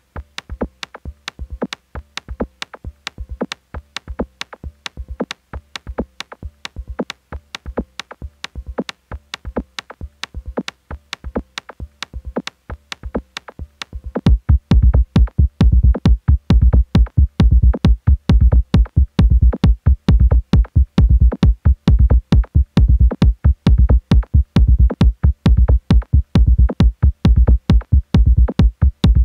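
Live minimal techno from a Roland TR-8S drum machine and synthesizers: a steady pattern of sharp ticking percussion hits, joined about halfway by a heavy kick drum that makes it much louder and fuller.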